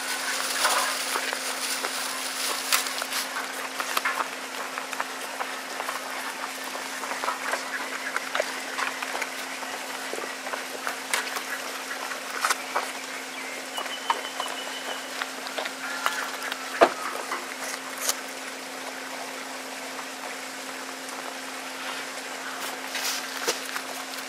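A goat crunching and chewing apple slices: a steady stream of irregular wet crunches and clicks. There is one sharper click about two-thirds of the way through.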